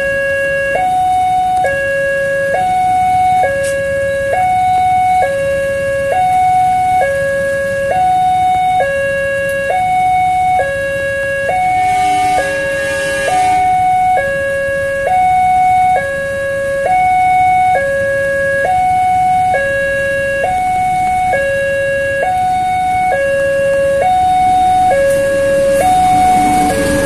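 Railway level-crossing electronic warning alarm sounding a steady two-tone ding-dong, switching between a higher and a lower tone about once a second, the signal that a train is approaching. Near the end the noise of the arriving train rises beneath it.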